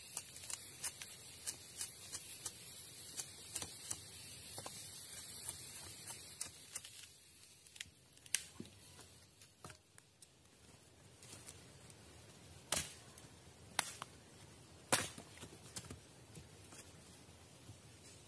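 Knife cutting into a wooden stick: scraping clicks and a few sharp cracks, the strongest spread over the second half. A steady high-pitched forest insect buzz fills the first seven seconds or so, then stops.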